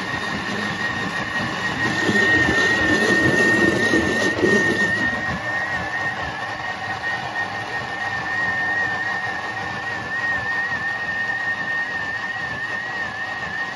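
Vorwerk Thermomix (Bimby) food processor running at top speed 10, its blade blending basil pesto (basil, pine nuts, Grana cheese, garlic, oil): a steady high motor whine with a slight waver. Between about two and five seconds in, louder churning of the ingredients.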